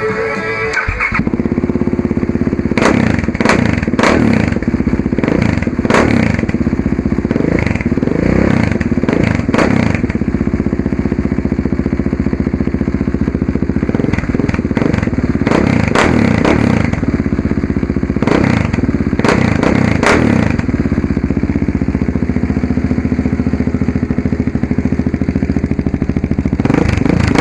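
Husqvarna 701's single-cylinder four-stroke engine starting about a second in, then idling through its exhaust with repeated quick throttle blips that rise and fall.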